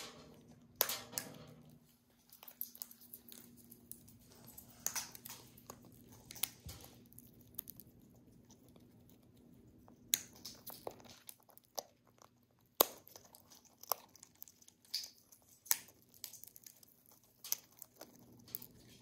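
A cockatoo cracking in-shell pine nuts with its beak: irregular sharp cracks and crunches of splitting shell, the loudest snaps about ten and thirteen seconds in.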